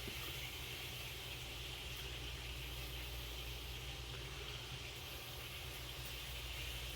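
Steady low electrical hum with a constant hiss: room tone, with no distinct tool or part-handling sounds.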